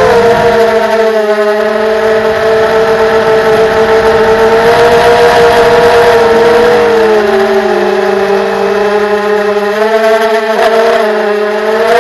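FPV drone's electric motors and propellers whining steadily, the pitch dipping and rising as the throttle changes.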